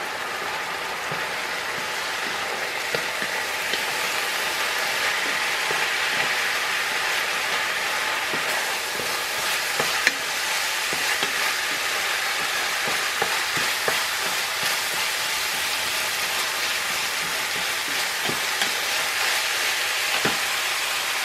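Ground beef sizzling as it fries in an enamelled skillet, with a wooden spatula scraping and tapping against the pan as the meat is stirred and broken up. The sizzle is a steady hiss, with scattered short clicks from the spatula.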